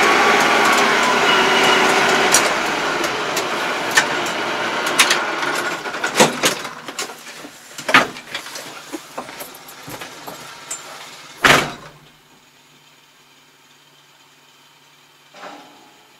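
Inside the cab of a Yanmar YT333 tractor: the engine runs loudly with a rattling clatter, then dies down over several seconds as the tractor stops. A few knocks follow, then the cab door shuts with a loud bang a little over two-thirds of the way in, leaving only a faint low hum.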